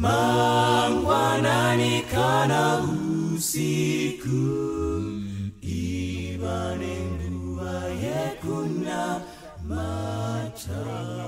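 Unaccompanied singing voices, a slow song of long held notes with bends between them, somewhat softer in the second half.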